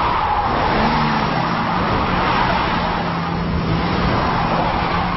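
Car engine running steadily under a loud rush of tyre and road noise as the car drives hard.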